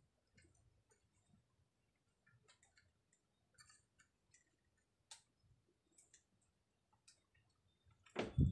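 Faint, scattered light clicks and taps from small hand tools being handled, with one louder short thump near the end.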